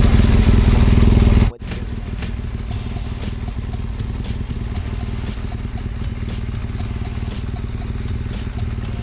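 BMW R1200GS Adventure's boxer-twin engine running as the motorcycle rolls slowly along, with music in the background. The sound drops suddenly to a quieter, steady level about a second and a half in.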